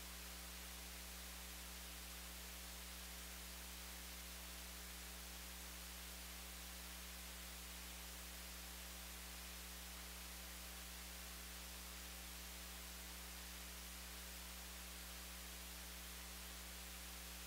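Faint, steady electrical mains hum with a layer of hiss, unchanging throughout: the sound system's noise floor with nothing else heard.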